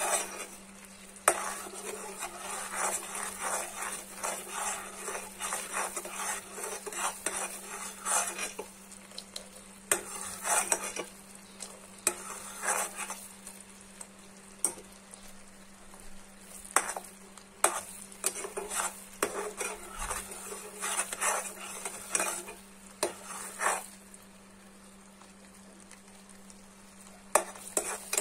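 A metal spoon stirring and scraping around a metal pot of boiling sugar-wax syrup (sugar, honey, lemon and water) cooking down on low heat, in irregular bursts of clinks and scrapes over the syrup's bubbling sizzle. The stirring lets up for a few seconds near the end.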